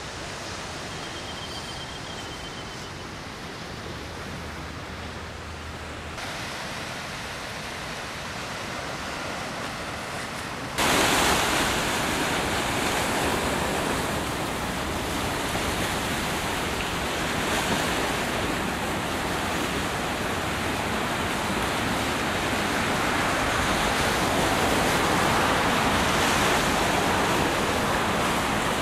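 Steady rushing noise of wind and breaking surf, with no clear separate events; it jumps abruptly louder about eleven seconds in and stays a dense, even hiss of waves.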